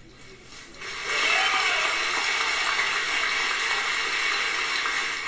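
Audience applauding: steady, dense clapping that begins about a second in.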